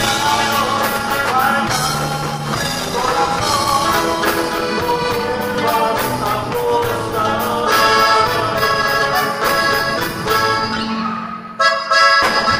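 Norteño band playing live: accordion melody over bajo sexto, electric bass and drum kit. Near the end the band drops out for a moment, then comes back in at full volume.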